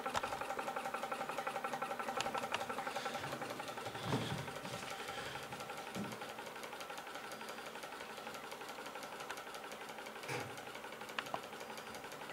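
Small DMF hot-air (Stirling) engine, water-cooled and heated by a three-wick alcohol burner, running with a rapid, even mechanical ticking from its moving parts.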